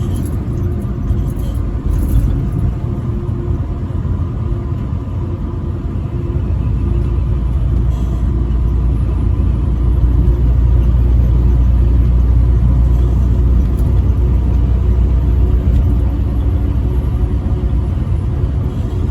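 Semi-truck running down the highway: a steady low engine drone and road rumble, which grows heavier from about six seconds in until about sixteen seconds.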